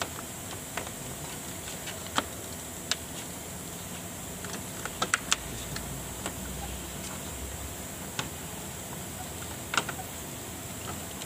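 Plastic radiator cover being handled and pressed into place: scattered sharp clicks and light knocks of plastic on plastic, with a quick run of three clicks about five seconds in, over a steady background hiss.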